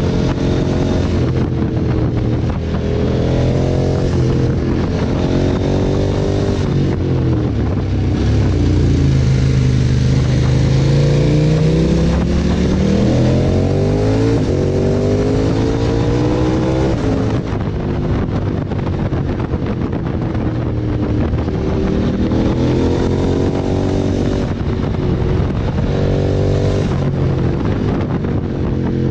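KTM 1290 Super Adventure S V-twin engine accelerating and backing off, its pitch climbing through the revs and dropping again several times, with one long climb in the middle. Wind hiss runs underneath.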